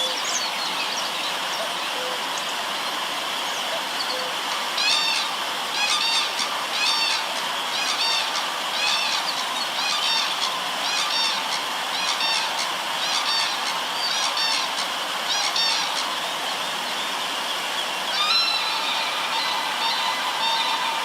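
Steady rushing river water, with a bird calling over it in a quick series of repeated high calls, about one to two a second, for roughly ten seconds from about five seconds in. Near the end, thinner whistled bird notes come in.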